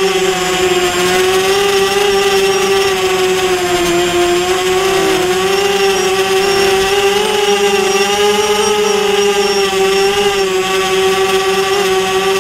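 Small drone's electric motors and propellers whining steadily as it flies, heard from its onboard camera; the pitch wavers slightly up and down.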